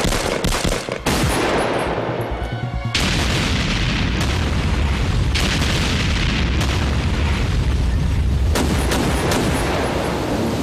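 Action-scene gunshots: a quick volley of sharp cracks in the first second. About three seconds in comes a sudden loud explosion, a deep rumble that lasts several seconds, and a few more shots follow near the end.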